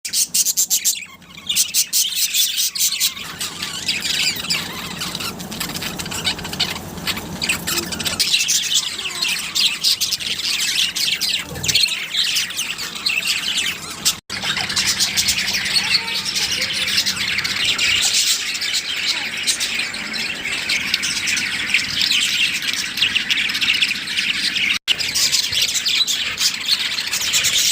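A flock of budgerigars chattering continuously, many chirps and squawks overlapping. The sound drops out abruptly for an instant twice, about 14 and 25 seconds in.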